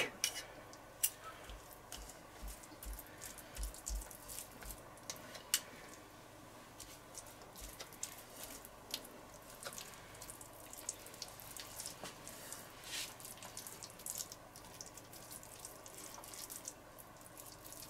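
Faint, irregular wet clicks and smacks of a spoon scooping mustard from a small jar and spreading it over thin raw beef slices on a wooden cutting board.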